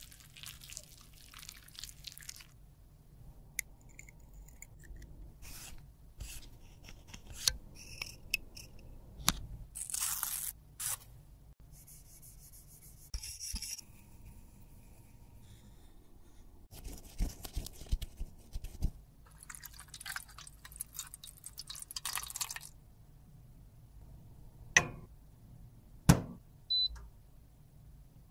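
Close-miked handling sounds of lipstick repair: a thin metal tool scraping and squishing soft lipstick out of its tube, in short irregular strokes. A few sharp clicks and taps come near the end.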